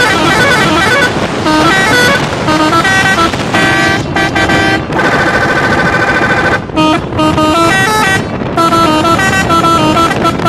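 Bus's multi-tone musical air horn playing a tune of short notes stepping up and down, with a few brief breaks around the middle, over steady engine and road noise.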